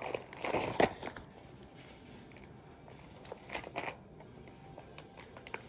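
Plastic mailer bag and paper crinkling and rustling as they are handled and pulled apart, in short spells: one in the first second, another about three and a half seconds in, with quieter handling between.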